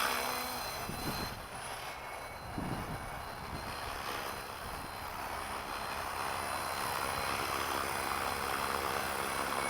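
Flywing FW450 electric RC helicopter hovering: the rotor and motor make a steady whirring drone with a thin high whine.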